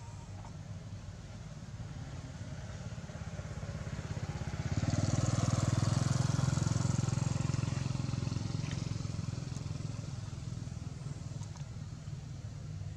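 A motor vehicle's engine drones low and steady, then a vehicle passes close by: its noise swells about five seconds in, peaks around six seconds and fades away by ten seconds.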